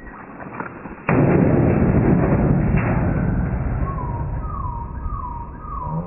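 A hammer blow on a metal dishwasher cabinet about a second in, with a sharp crack and then a loud rumbling clatter that slowly dies away over a few seconds. In the second half a short chirp repeats about every half second.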